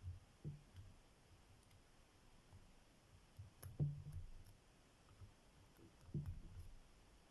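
Faint metal clicks and light taps of a lock pick and tension wrench working the pins of a cross lock. The sharpest clicks come about halfway through and again about six seconds in.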